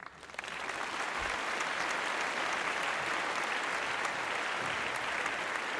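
Applause from a crowd clapping, starting suddenly and then holding steady.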